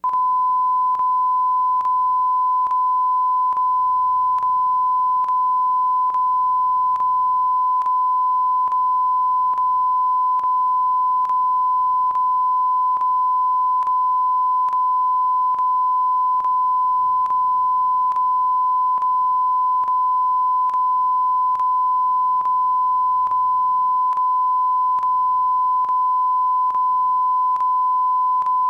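A single unbroken high-pitched beep tone from a VHS tape, starting abruptly, with faint clicks at an even pace as it loops.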